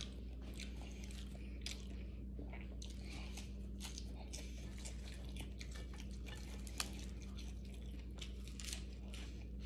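A person chewing and biting food close to the microphone: many small, irregular crunches and clicks over a steady low hum.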